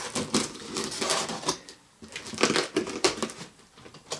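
Cardboard shipping box being opened by hand: irregular crackling, scraping and knocking of cardboard, with a short pause about halfway through.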